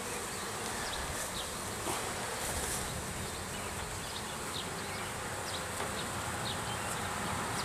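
Honeybees from an opened package buzzing as they fly about, a steady hum with no strong single events.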